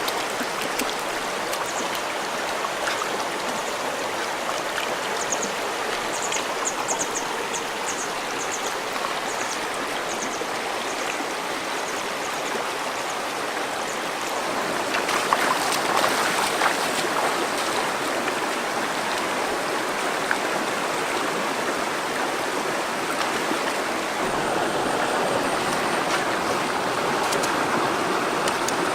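River water running over rocks, a steady rushing flow that grows a little louder about halfway through.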